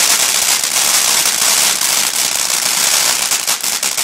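Firework fountain spraying with a dense, rapid crackle that holds steady.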